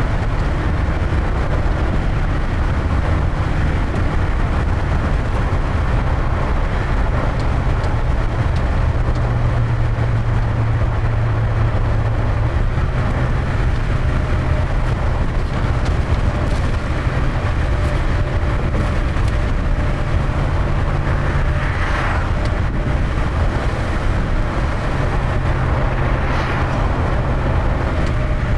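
Steady low drone and rumble of a car driving at road speed, heard from inside the cabin. Twice, late on, a brief swell of rushing hiss rises over it.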